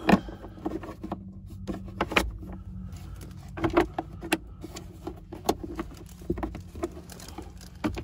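Irregular plastic clicks and knocks from small plastic dash parts being worked back into place by hand, over a steady low hum.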